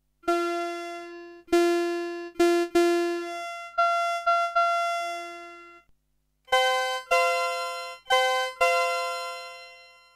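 Raspberry Pi wavetable synthesizer playing a swept-wavetable 'Choir' + 'Brass' patch from a keyboard: two short phrases of separate notes with a brief pause between them. Each note starts bright and fades away, its upper tones dying first.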